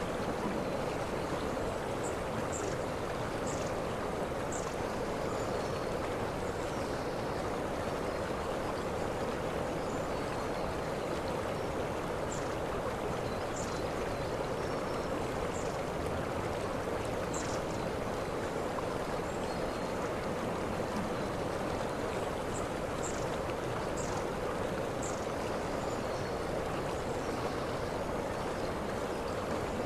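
Waterfall: a steady, unbroken rush of falling water, with short high chirps scattered over it.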